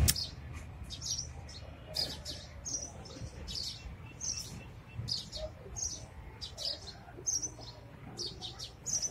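Small birds chirping: a steady string of short, high chirps, two or three a second.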